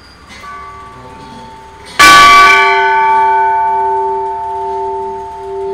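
Old railway signal bell, hung on a post, struck twice by pulling its chain: a light strike about half a second in, then a much louder one about two seconds in that rings on and slowly fades.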